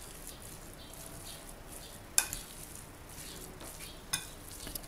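Raw minced beef being mixed with garlic by hand and spoon in a bowl: soft, wet squishing and stirring. Two sharp clicks, about two seconds in and near the end.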